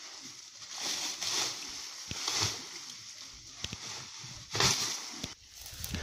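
Plastic tarp rustling and crumpling as it is pulled off an engine and bundled up, in several swishing surges, the loudest near the end.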